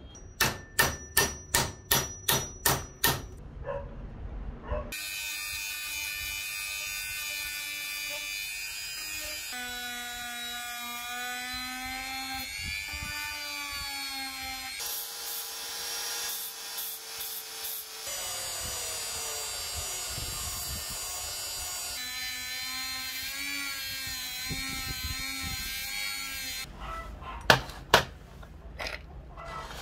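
A handheld rotary tool with a sanding drum runs against a small steel bracket, a high whine whose pitch jumps several times. Before it starts there is a quick run of about ten sharp metal strikes, and near the end two loud sharp knocks.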